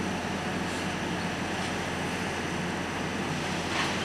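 Diesel-electric locomotive idling, a steady low engine drone under a hiss, with a brief burst of hiss near the end.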